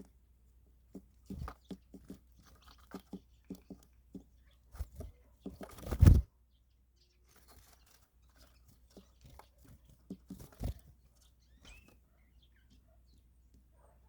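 Poultry pecking and eating feed: a run of irregular short pecking taps and crunches, with a louder knock about six seconds in and another near eleven seconds.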